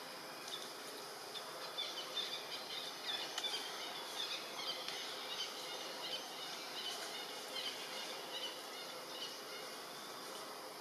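Forest ambience: a steady hiss with scattered quick high chirps of small birds and insects, busiest through the middle of the stretch.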